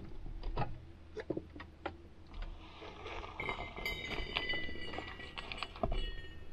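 A few knocks and clinks as a metal kettle is handled and lifted, then, about three and a half seconds in, hot water pouring in a thin stream into a pour-over coffee dripper's paper filter, ringing with steady high tones.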